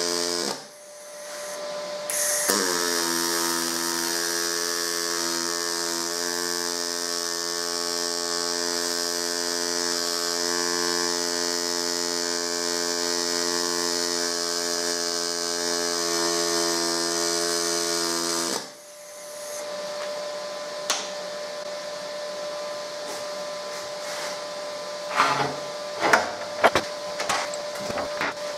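Pulse MIG welder (HTP ProPulse 200) brazing stainless steel with silicon bronze wire: the pulsing arc gives a steady pitched buzz. The buzz breaks off for a moment under a second in, then runs as one long bead of about sixteen seconds and stops sharply. A few sharp knocks follow near the end.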